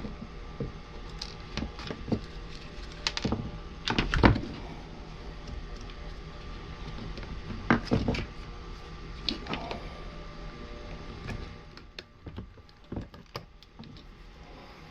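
Hand tools and the mini chainsaw's plastic housing being handled during disassembly: scattered clicks and knocks, with the loudest clusters about four and eight seconds in.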